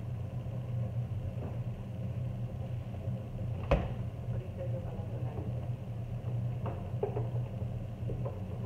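Steady low mechanical hum, with one sharp knock about four seconds in.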